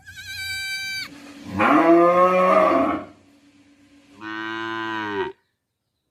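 Cattle mooing: a short high wavering call, then two long moos, the second cut off abruptly.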